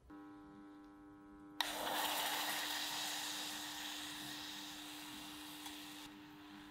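Steady electrical hum from an electric hob, then, about a second and a half in, a sudden sizzle as berry puree goes into the hot saucepan, slowly fading.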